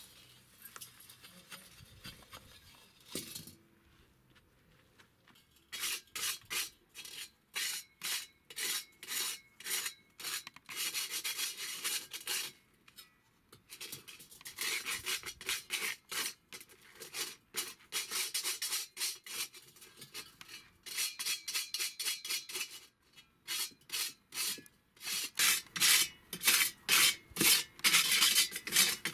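Sandpaper scrubbed by hand back and forth over the steel shell of a cut-in-half gas bottle, in quick scratchy strokes about two to three a second, in runs with short pauses. The strokes begin about six seconds in, after faint handling knocks, and grow louder and faster near the end.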